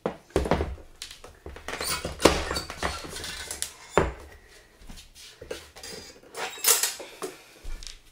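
A folding 1940s highchair with a tubular metal frame being folded up and handled: a string of metallic knocks, clanks and rattles as the seat and tray swing down against the legs.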